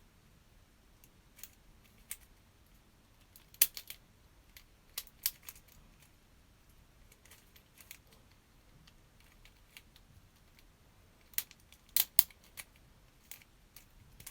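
Plastic clicks and clacks of a floppy cube puzzle being turned by hand, coming in irregular scattered clusters with quiet gaps between.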